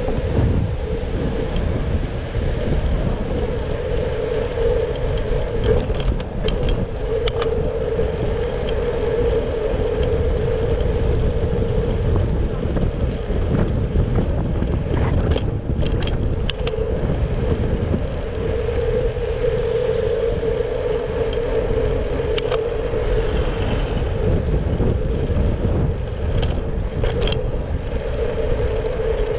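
Riding noise from a Brompton folding bicycle on city roads: continuous low wind-and-road rumble on the camera microphone with passing traffic, a steady mid-pitched hum that fades in and out, and scattered short clicks and rattles from the bike.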